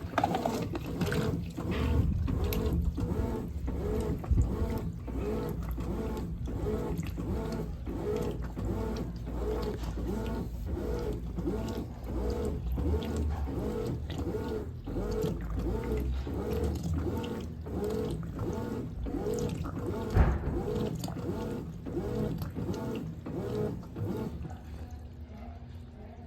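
Brastemp 17 kg top-load washing machine agitating its load in water, with a steady rhythm of strokes and a motor tone. It stops shortly before the end.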